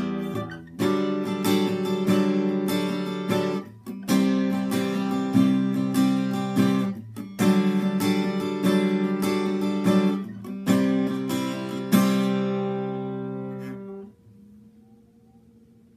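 Steel-string acoustic guitar strummed in chords, a new chord every second or two with brief breaks between phrases; near the end the last chord rings out and is damped.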